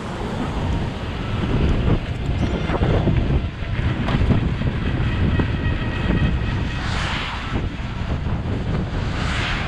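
Wind buffeting the microphone of an electric chopper scooter riding on a wet road. It grows louder over the first two seconds as the scooter picks up speed, with tyre hiss and a faint steady whine underneath, and two brief surges of hiss, about seven and nine and a half seconds in.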